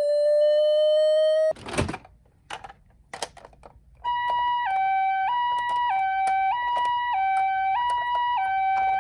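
A steady held tone cuts off with a thump about a second and a half in, followed by a few light clicks. From about four seconds in a toy ambulance's electronic two-tone siren sounds, switching steadily between a high and a low note about every half second in the Japanese ambulance pee-po pattern.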